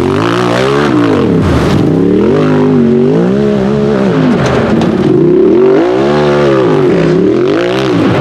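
Tube-chassis UTV's engine revving hard and dropping again and again, about once a second, as the driver works the throttle under load up a steep, slick hill climb.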